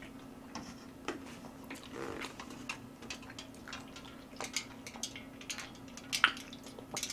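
Faint eating sounds: a utensil clicking and scraping against a stainless steel bowl held to the mouth as food is shovelled in, with small wet mouth and drip-like sounds. The clicks are scattered and irregular, a little denser in the second half, over a faint steady hum.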